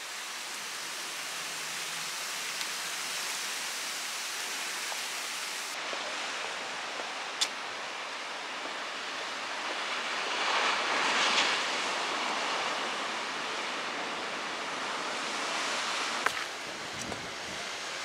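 Surf breaking on a rocky shore, a steady rushing noise with wind on the microphone, swelling louder about ten seconds in. A single sharp click comes a little past seven seconds.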